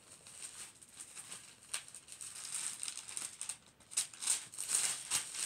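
Thin Bible pages being leafed through by hand: irregular paper rustling and flicking, louder and quicker from about four seconds in.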